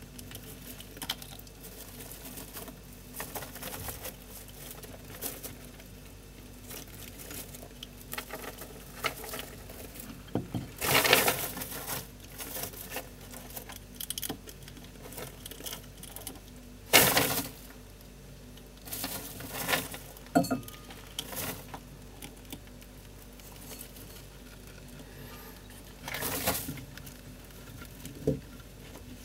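Pet rats scurrying and rummaging in dry hay bedding: rustling and crackling that comes and goes, with several louder bursts, the loudest about halfway through.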